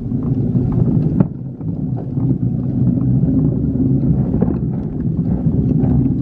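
Plastic wheels of a wheeled trash bin rolling over a concrete driveway: a steady rumble with scattered clicks and a sharper knock about a second in.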